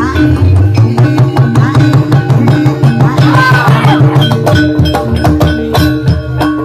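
Gamelan music for an ebeg dance: kendang hand drums playing a busy pattern over a repeating figure on pitched percussion, with a sustained low tone under the first four and a half seconds.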